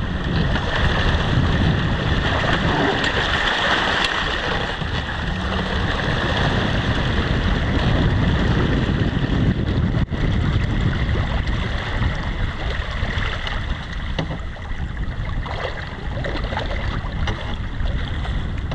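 Wind buffeting the microphone in a steady rumble, over the hiss of water rushing past the hull of a small sailboat running downwind, with a momentary dropout about ten seconds in.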